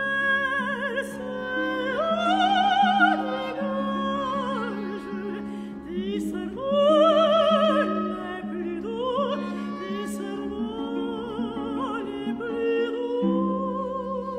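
Operatic soprano singing a slow French aria with wide vibrato over sustained orchestral chords. Her line climbs to louder high notes about two seconds in and again about seven seconds in.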